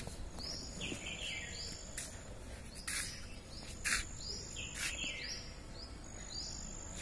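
Small birds chirping, a busy run of short calls that each fall in pitch, with a faint steady high whine and a few sharp clicks, the loudest about three and four seconds in.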